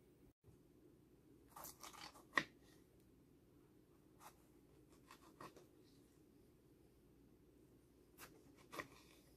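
Kitchen knife slicing a tomato on a bamboo cutting board: a few faint, crisp cuts and taps of the blade against the wood, the sharpest about two and a half seconds in.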